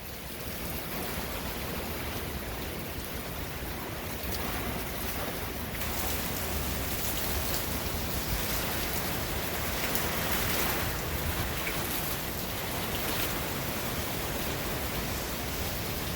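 Hurricane rain pouring down in strong wind: a steady rushing hiss with a low buffeting rumble, growing louder and brighter about six seconds in.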